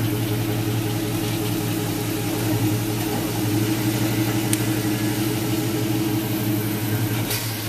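Engine of a 2004 replica 1935 Auburn boattail speedster idling steadily.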